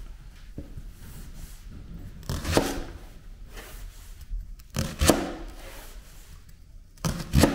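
Kitchen knife cutting a leek into pieces on a wooden cutting board: three sharp knocks of the blade on the board about two and a half seconds apart, with fainter scraping and rustling of the leek between them.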